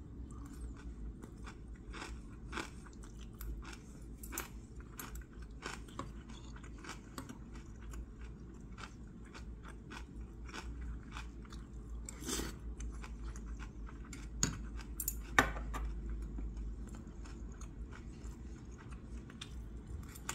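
Close-up chewing and crunching of kimchi and pickled side dishes, with scattered light clicks of metal chopsticks and a spoon against the dishes. One much louder sharp click comes about three quarters of the way through.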